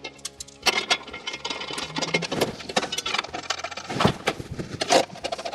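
Metal clanking, scraping and rattling as the butterfly chassis brace is fitted up against the frame rails and its bolts are started by hand: irregular knocks and clicks in quick succession.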